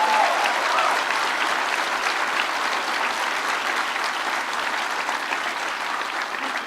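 Audience applauding, a steady wash of clapping that tapers off near the end.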